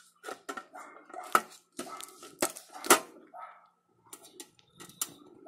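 Sheet-steel case of a computer power supply being handled and gripped, giving a run of sharp metallic clicks and knocks, the loudest three in the middle.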